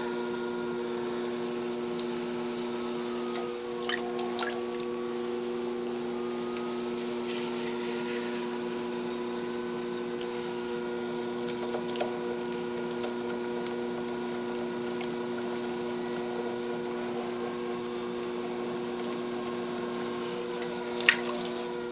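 Electric potter's wheel running with a steady hum and a fainter whine that drifts slightly in pitch, under soft wet sounds of hands centering and opening a lump of clay on the spinning wheel head.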